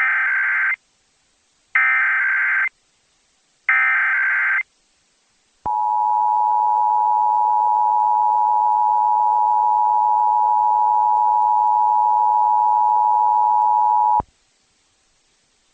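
Emergency Alert System test tones: three short bursts of SAME header data, a buzzy digital warble each about a second long, followed by the EAS two-tone attention signal, a steady two-note tone held for about eight seconds and cut off sharply.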